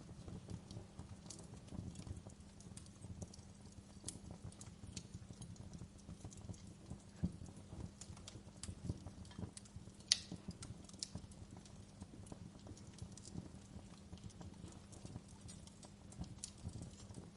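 Wood fire crackling in a fireplace: irregular small pops and snaps, with one sharper snap about ten seconds in, over a steady low hum.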